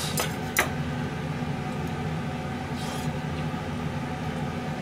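Steady low machine hum, with two light clicks in the first second as a plate of food is handled.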